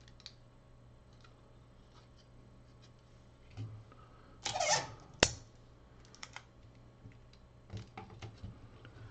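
Kapton tape being pulled off its roll in a short rip about four and a half seconds in, followed by one sharp click. Light handling clicks and taps are scattered around it.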